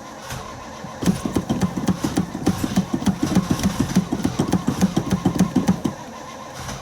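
Car engine being cranked by its starter for about five seconds in a steady rhythm of about five or six beats a second, without catching, then stopping. It is a hard cold start on a car that has sat unused for about a month in 13-degree cold.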